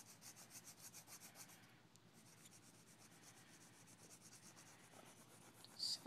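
Faint scratching of a pencil shading on paper in quick back-and-forth strokes, about ten a second, with a short break about two seconds in.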